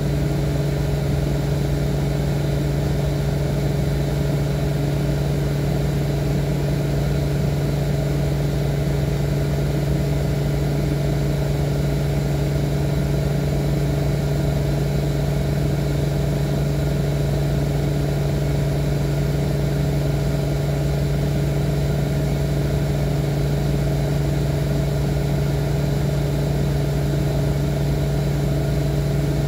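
Steady electric hum of a small appliance running, one strong low tone with fainter higher tones above it, unchanging throughout.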